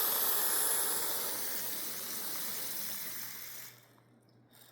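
Aerosol carburetor cleaner spraying in one long steady hiss into a clogged passage of a Briggs & Stratton carburetor, cutting off a little under four seconds in.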